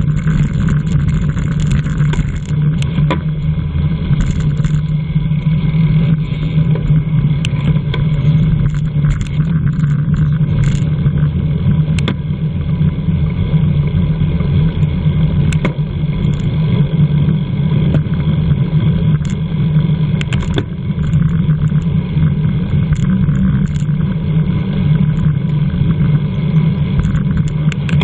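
Steady wind rush and road noise on a bicycle-mounted camera's microphone while riding at race speed, with a few light clicks scattered through.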